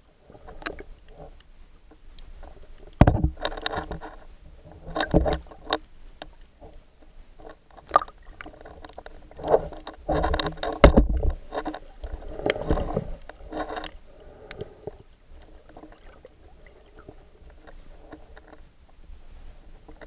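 Muffled underwater sound of a snorkeler moving through the water, heard through the camera's housing: irregular surges of swishing and bubbling, with a dull knock about three seconds in and another near eleven seconds, then fainter water noise over the last few seconds.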